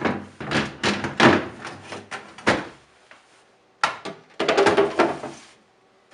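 Plastic freezer drawer being slid into its rails, rattling and knocking. About four seconds in, a second burst of plastic scraping and clatter as the plastic ice cube holder is pushed into place.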